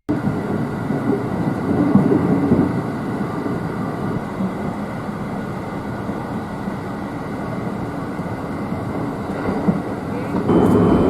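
Running noise of an overnight sleeper train heard from inside: a steady rumble from the wheels on the rails. It gets louder about ten seconds in.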